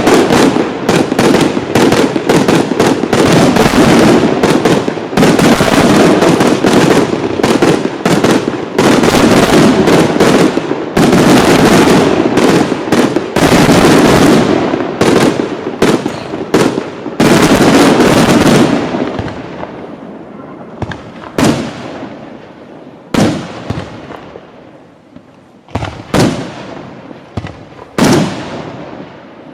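Professional display fireworks: a dense, continuous barrage of shell bursts and crackling, thinning after about 19 seconds to scattered single bangs with fading crackle.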